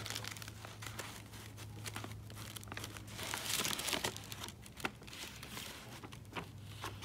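Sheets of tracing paper and carbon paper rustling and crinkling under the hands that hold them down, with irregular pencil strokes scratching across the paper as a drawing is traced.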